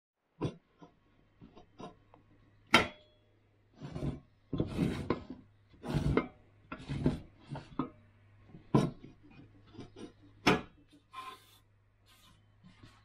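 Stone block being turned and pushed by hand in a metal dual sharpening stone holder: sharp knocks as it shifts and seats in the frame, with several scraping rubs of stone against metal in between.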